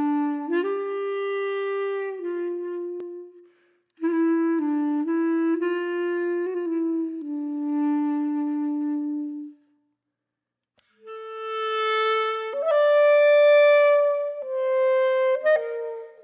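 Background music: a slow solo wind-instrument melody of long held notes, falling silent twice for a moment.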